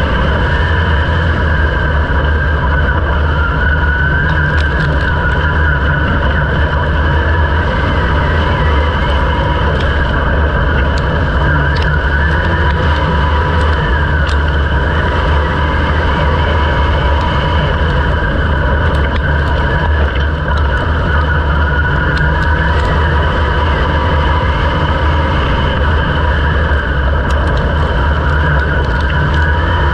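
Vehicle engine running loud and steady, its pitch wavering slightly.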